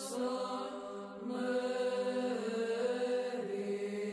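Background Orthodox chant: slow, sustained voices hold a steady low drone under a melody that moves slowly from note to note.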